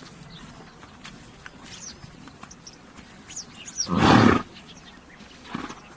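A horse snorting: one loud breathy blast about four seconds in and a shorter one near the end. Small birds chirp faintly before the snorts.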